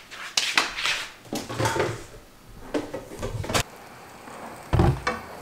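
Kitchenware being handled: several short knocks and clatters, then a heavier, dull thump near the end.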